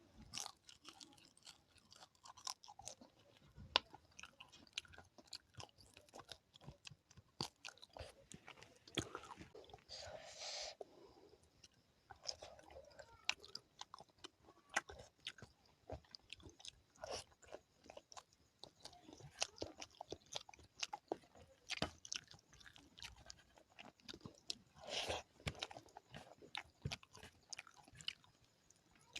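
Close-miked eating: a person chewing and crunching a curry-and-rice meal, with many small wet clicks and crackles and a few louder bursts of crunching.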